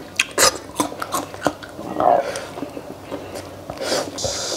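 A person eating flat wheat noodles close to the microphone: chewing with many short, wet mouth clicks and smacks, then a steady hissing slurp about four seconds in as a mouthful of noodles is sucked in.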